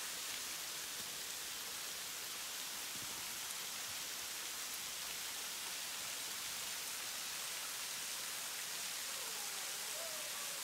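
Steady hiss of a shallow creek running over rocks.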